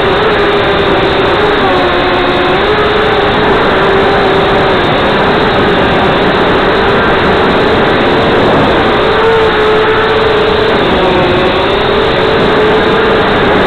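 Blade 200QX quadcopter's brushless motors and propellers heard up close from the onboard camera: a loud, steady buzzing whine with a rushing noise of air under it. The pitch dips and rises again several times as the throttle changes in flight.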